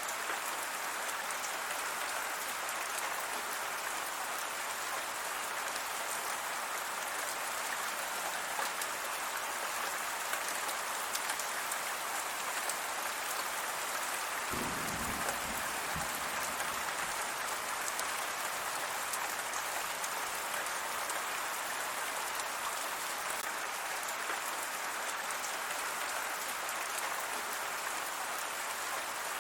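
Steady rain falling: an even hiss of many drops hitting surfaces. A brief low rumble lasting about a second and a half comes just after the middle.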